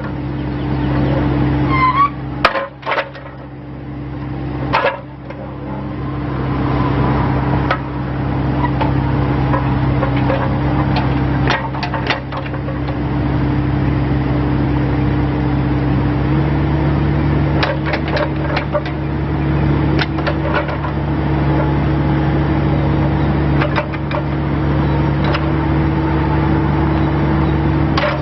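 Bobcat E26 mini excavator's diesel engine running steadily, with scattered knocks throughout. The engine note steps up slightly a little over halfway through.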